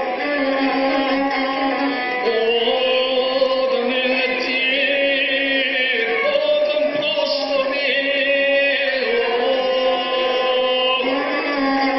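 Gusle, a single-string bowed Balkan folk fiddle, played in a wavering melody over a steady drone, heard through a television's speaker.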